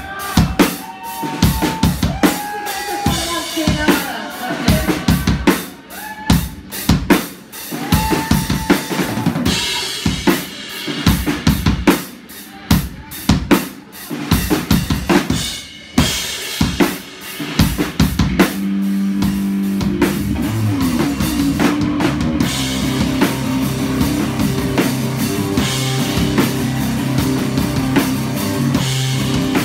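Live doom metal played on a drum kit and a distorted Rickenbacker electric bass. For the first part the drums pound heavily under the bass; about eighteen seconds in, the bass settles into long held low notes over steady drumming.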